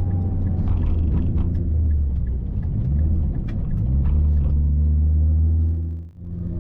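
Car engine and drivetrain running while driving, a steady low drone whose pitch steps up about four seconds in. It briefly cuts out near the end.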